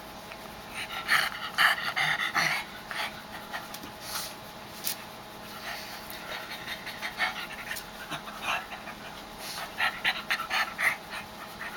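Pug making rapid, noisy breaths in bursts while its back is rubbed, strongest about a second in and again near the end; the owner says it sounds angry.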